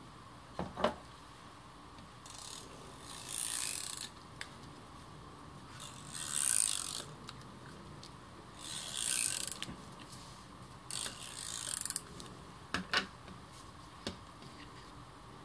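Handheld adhesive tape runner drawn along the edges of a cardstock panel in four zipping strokes of about a second each, with a few light clicks of card being handled between them.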